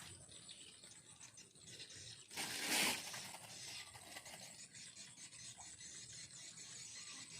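A brief rustling scrape lasting about half a second, a little over two seconds in, over a faint background.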